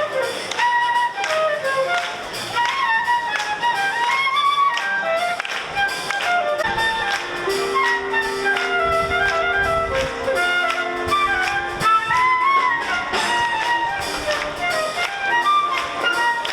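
Brass band playing an upbeat tune: a quick high melody over steady drum beats, with held low chords in the middle.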